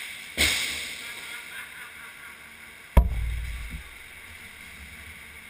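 A sharp knock on the hockey goal that the camera sits in, about three seconds in, followed by a low rumble that dies away over about a second. Near the start there is a brief scraping rush.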